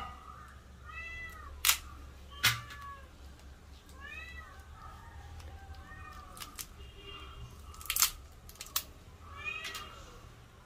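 A cat meowing repeatedly, in short rising-and-falling calls, while sharp clicks and snaps come from crab shells being broken apart by hand.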